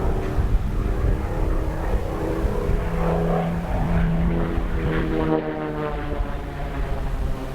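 Propeller airplane engine droning in flight, its pitch shifting a few times as it manoeuvres.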